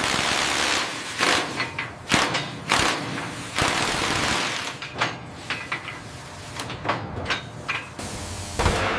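Repeated bursts of hissing, each fading away over a second or so, mixed with many sharp, irregular knocks and clanks of heavy machinery.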